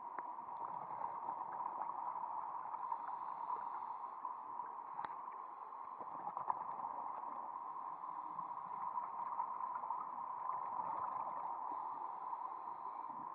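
Underwater ambience through a camera's waterproof housing: a steady muffled hiss with faint scattered clicks and crackles, and one sharper tick about five seconds in.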